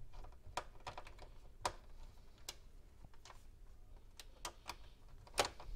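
Screwdriver backing a long screw out of a computer's plastic chassis: faint, irregular clicks and ticks as it is turned.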